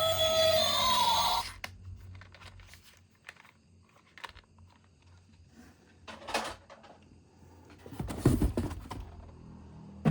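Guitar music stops about a second and a half in. After it come scattered clicks, taps and rustles of small objects being handled, with a louder clatter about eight seconds in.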